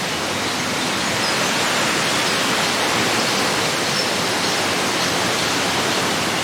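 Steady rushing water of a river rapids raft ride, the churning current and spray loud and unbroken.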